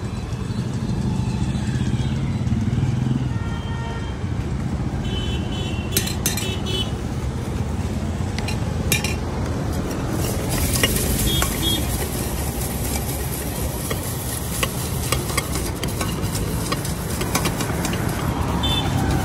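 Metal spoon clinking and scraping in a steel tin as jhal muri (puffed rice with spices) is stirred, with scattered short clinks and a few brief ringing notes. A steady rumble of road traffic lies underneath.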